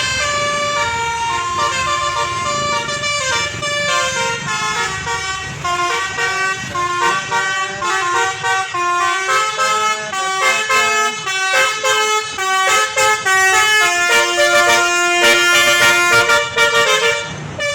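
A bus's basuri musical horn playing a loud tune of stepped, held notes, with one longer held note near the end.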